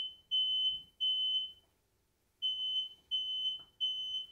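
Smoke alarm sounding its evacuation signal: high-pitched beeps in groups of three, with a short pause between the groups, the temporal-three pattern.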